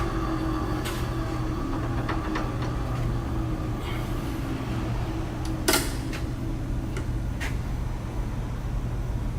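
Landis surface grinder running with a steady low hum. A faint whine falls in pitch and fades over the first few seconds. Scattered mechanical clicks and knocks come through, the loudest a little past the middle.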